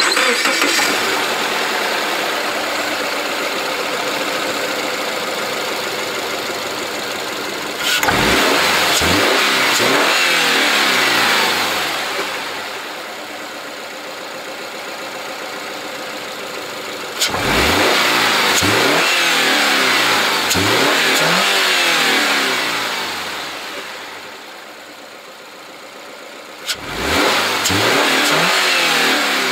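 A Subaru Forester's 2.0-litre flat-four boxer engine running with the hood open, revved three times, about 8, 17 and 27 seconds in. Each rev is held a few seconds and then drops back toward idle.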